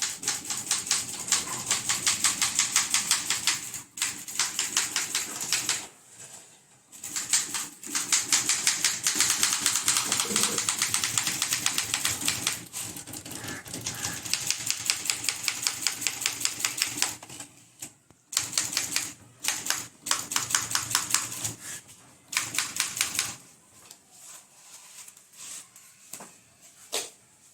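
Typewriter being typed on rapidly, keys striking in quick even runs of several seconds with short pauses between, thinning to a few scattered strikes near the end.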